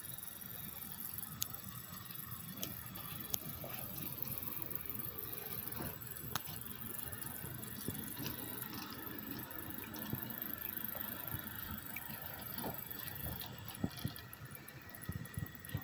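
Model train running along the track, pulled by two diesel locomotives: a steady rolling noise with scattered sharp clicks.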